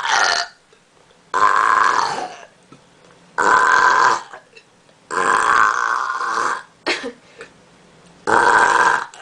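A girl burping on purpose, one loud burp after another: four long burps of about a second each, spaced a second or two apart, with a short one between the third and fourth.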